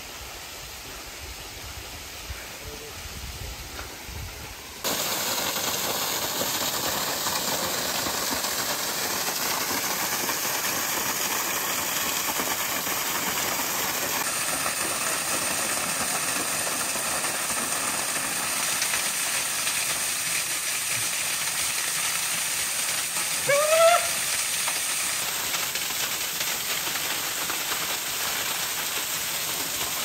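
A thin waterfall splashing onto rock and into a shallow pool: a steady rushing hiss. It is faint for the first few seconds, then loud and close from about five seconds in. About three-quarters of the way through, a man gives one brief rising cry.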